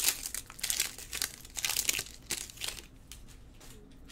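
Foil wrapper of a baseball card pack crinkling as it is handled and peeled open, a quick run of sharp rustles that dies away after about three seconds.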